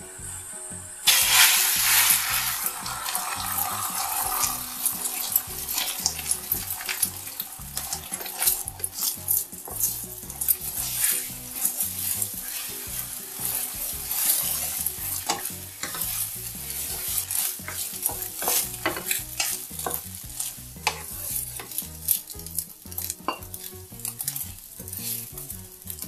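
Beaten eggs hit hot oil in a nonstick frying pan with a sudden loud sizzle about a second in. They go on sizzling while wooden chopsticks stir and scramble them, with many short taps and scrapes against the pan.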